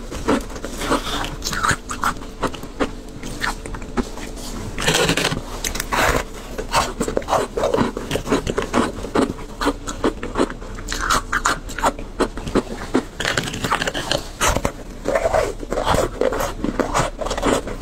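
A person biting and crunching through compressed shaved ice topped with passion fruit pulp, then chewing it: a steady run of irregular, crisp crunches.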